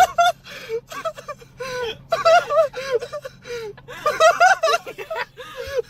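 High-pitched, breathless laughter with gasps and squeals, in repeated bursts and short pauses.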